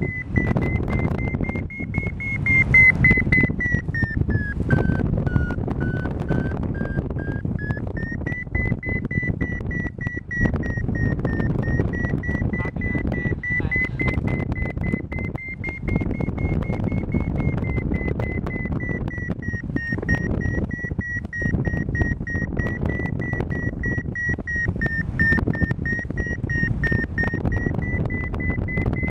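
A paraglider's variometer sounds a steady high tone over heavy wind noise rushing across the microphone. The tone's pitch drops for a few seconds about four seconds in, then rises back and holds; a variometer's pitch follows the glider's climb rate in the thermal.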